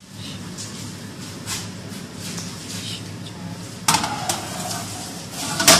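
Round metal pizza tray clinking and knocking against the oven rack as it is slid into an oven, with two sharper knocks, about four seconds in and near the end, over a steady low hum.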